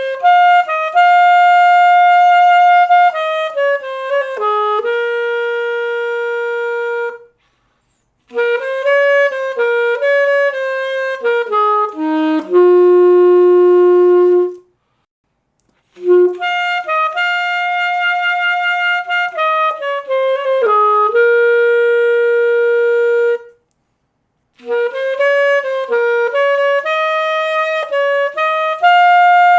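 Selmer Paris Series III alto saxophone played solo and dry, with no effects, in four melodic phrases separated by short pauses. Each phrase moves through quicker notes and settles on a long held note.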